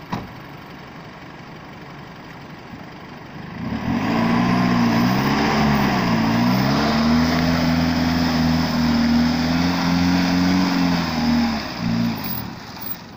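Isuzu pickup's engine revving hard as it churns through slippery mud to keep from getting stuck. The revs dip briefly, then hold high and steady for several seconds before dropping off sharply near the end.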